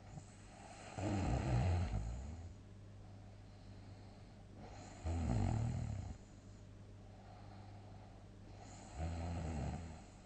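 A sleeping person snoring heavily: three loud snores about four seconds apart, each lasting a second or so, with quieter breaths between them. A steady low hum runs underneath.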